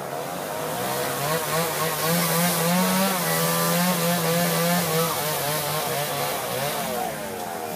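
Two-stroke chainsaw revving up about a second in and holding high under load as it cuts into a wooden carving, then its pitch drops and wavers after about five seconds.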